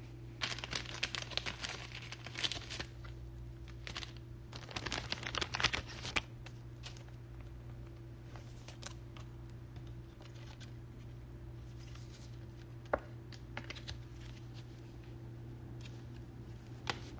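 Crinkling plastic and light clicks as a trading card is handled and put into plastic protection, in two busy stretches in the first six seconds, then scattered clicks with a sharp click about thirteen seconds in and another near the end, over a steady low hum.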